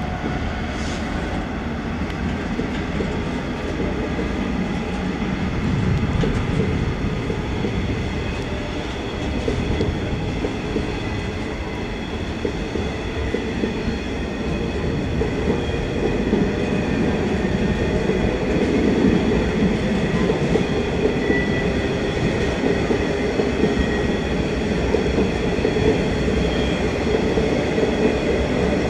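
Intermodal freight train hauled by a DB Cargo Class 66 diesel locomotive rolling past, the wagons' wheels running steadily on the rails. The sound grows a little louder about halfway through as the container wagons come by.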